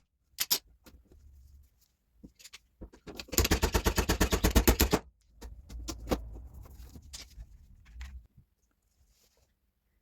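A power tool rattling in rapid bursts of sharp strikes on a car door, the longest burst lasting about a second and a half in the middle, followed by quieter rumbling and scattered knocks.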